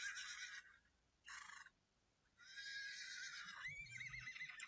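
Horse neighing: a whinny that ends about half a second in, a short breathy burst around a second and a half, then a longer whinny whose pitch quavers toward the end.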